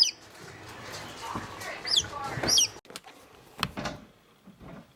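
Newly hatched chicks peeping: several short, high calls that slide quickly down in pitch. A single sharp knock follows about three and a half seconds in.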